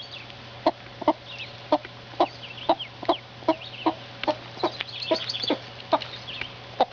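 Broody Partridge Cochin hen clucking steadily, about two short clucks a second, the low brooding cluck a mother hen keeps up with her young. Faint high peeps, typical of ducklings, sound over it.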